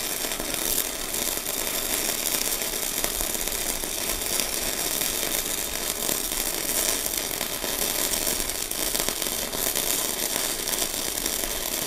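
Sasuke MIG welder's arc running one continuous bead on a steel box section: a steady, dense crackling sizzle with spatter.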